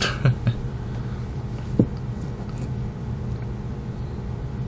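Steady low background hum with a few small handling clicks and taps, two close together right at the start and one a little under two seconds in.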